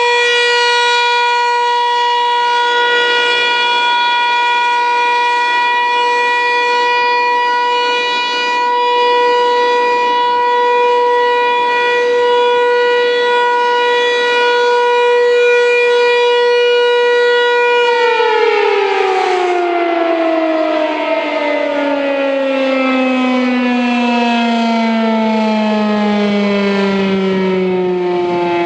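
American Signal T-135 electromechanical outdoor warning siren sounding a loud steady tone during a test, then, about two-thirds of the way through, winding down: the pitch falls slowly and smoothly as the rotor coasts to a stop at the end of the signal.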